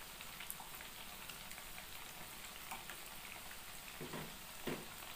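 A steady faint sizzling hiss of food frying, with soft taps and scrapes of a metal spoon stirring coconut milk into an aluminium pot of greens.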